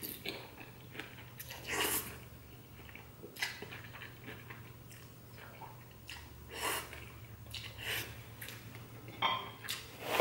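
A person slurping and chewing glass noodles eaten with chopsticks, in short wet bursts every second or two, over a faint steady low hum.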